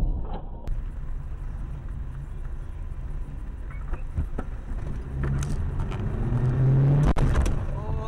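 Dashcam audio from inside a car driving on a wet road: steady engine and tyre rumble. From about five seconds in, the engine note rises as the car accelerates. A single sharp knock comes about seven seconds in.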